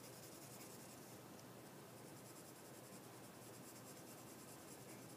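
Faint, steady scratching of a graphite pencil shading on drawing paper, filling in a darker value.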